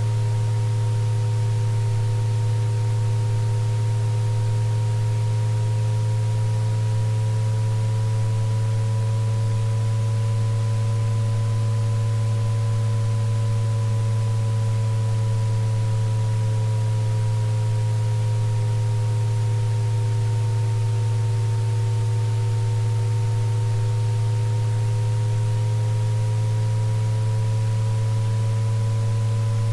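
Electronically generated sine tones of a tinnitus-relief frequency track. A loud, steady low hum sits under several quieter higher tones that slowly waver up and down in pitch, over a faint hiss.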